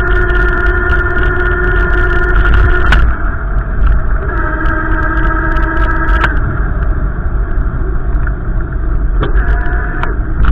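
Wind buffeting the microphone as a heavy, uneven low rumble, under a steady humming tone that breaks off and comes back at a different pitch a few times.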